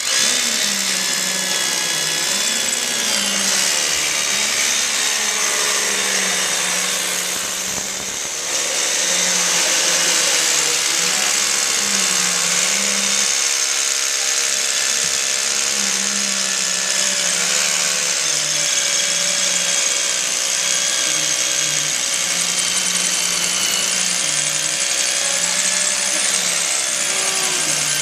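Electric drill running steadily as it bores into concrete for an anchor-bolt hole. Its low motor tone wavers with the load, and it eases off briefly about eight seconds in.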